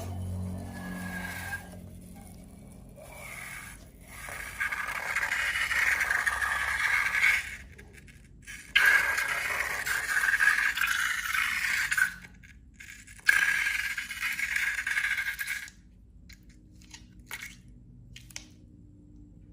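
Scraping from slime being worked with balloons, in three long stretches of a few seconds each, with short breaks between them.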